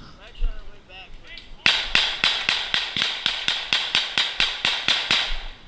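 Airsoft rifle firing a rapid string of single shots, about five a second. The string starts a little under two seconds in and lasts about three and a half seconds, each shot a sharp click.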